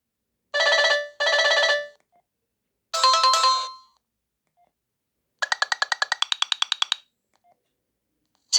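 Alcatel OneTouch E801 mobile phone playing short electronic ring and alert tones with silent gaps. First come two matching tones back to back, then a single fading chime about three seconds in, then a rapid trill of about twelve pulses a second lasting about a second and a half.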